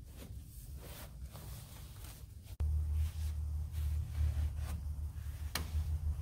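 Microfiber cloth rubbing over an old car's dashboard and steering column in faint wiping strokes. About two and a half seconds in, the sound cuts abruptly and a steady low rumble comes in under the wiping, with one sharp click near the end.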